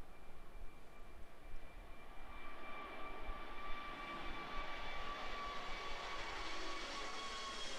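Four-engined Airbus A380 jet climbing out after takeoff and passing overhead: engine noise swelling and growing brighter as it comes close, with high whining tones that slowly fall in pitch.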